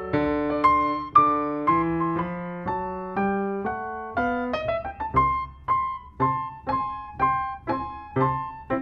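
Solo piano music, single notes struck and left to ring and fade. An upward run comes about four to five seconds in, then an even pattern of about two notes a second.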